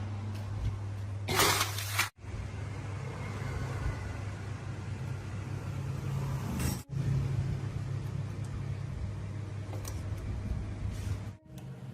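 A machine running with a steady low hum, cut off briefly three times, and a short loud hiss about a second and a half in.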